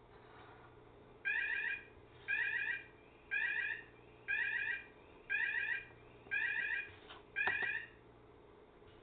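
Electronic alarm beeping in seven evenly spaced bursts, about one a second, each a short high warble. A couple of light knocks sound near the end.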